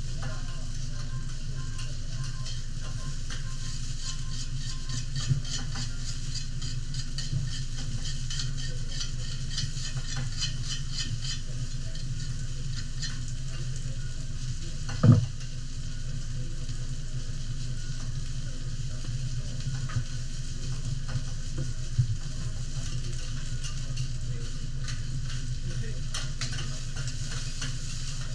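Vegetables frying on a teppanyaki iron griddle: steady sizzling and crackling, with the chef's metal spatula scraping and tapping the plate, over a steady low hum. One louder knock about halfway through.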